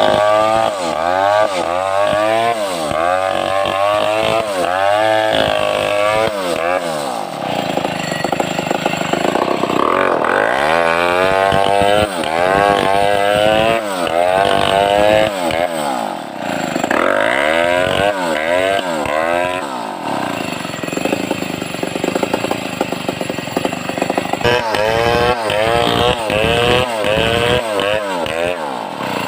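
Home-built Stihl 070-type two-stroke chainsaw running hard. Its engine speed rises and falls over and over, about once a second for the first few seconds, then in slower swells of one to two seconds.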